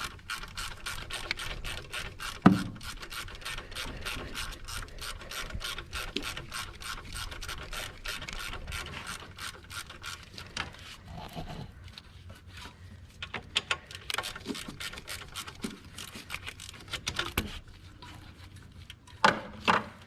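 Hand ratchet wrench clicking rapidly as it works a 14 mm alternator bolt loose. There is a sharp knock about two seconds in. The clicking thins to scattered clicks and knocks after about ten seconds.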